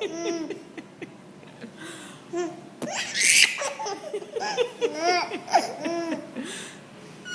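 Baby laughing in bursts of giggles and belly laughs. A short hissing sound about three seconds in sets off a louder, denser run of laughter.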